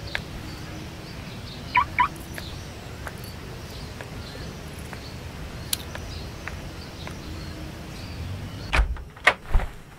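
Quiet outdoor evening ambience with two short chirps about two seconds in. Near the end come a few sharp metallic clinks and knocks as a car key on its key ring drops into roadside weeds.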